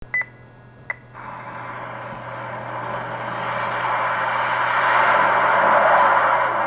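Jet aircraft engine noise on an old film soundtrack, a steady rushing sound that builds in loudness from about a second in, after two sharp clicks at the start.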